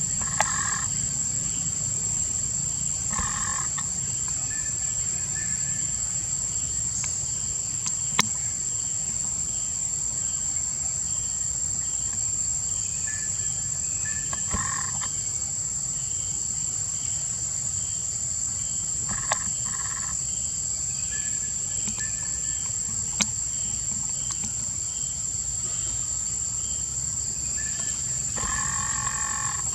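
Steady high-pitched drone of insects, over a low rumble. Short calls come every several seconds, with a longer call near the end.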